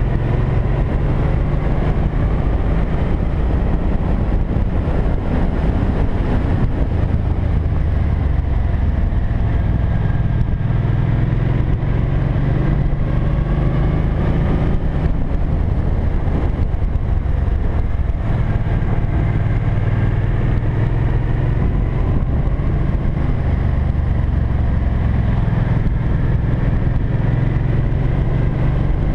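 Cruiser motorcycle engine running at riding speed, heard from on board with rushing wind noise, its pitch rising and falling with the throttle.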